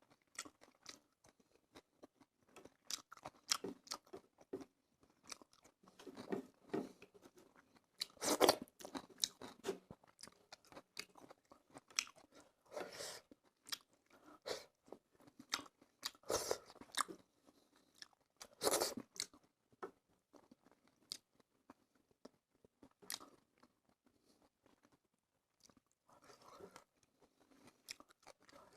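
Close-up mouth sounds of a person eating fish curry with rice and salad: irregular wet chewing and crunchy bites, with a few louder crunches.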